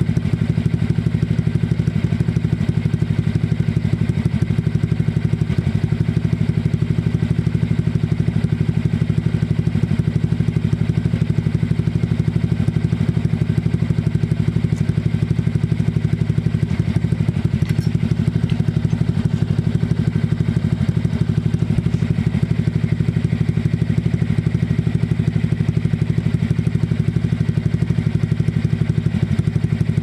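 Honda Click scooter's single-cylinder four-stroke engine idling steadily through an aftermarket SC Project exhaust fitted with its silencer insert, an even, fast-pulsing exhaust note with no revving.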